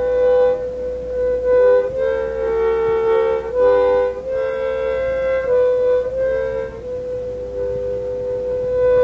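Harmonica playing a slow tune of long held notes, often two or more notes sounding together, over a low steady hum.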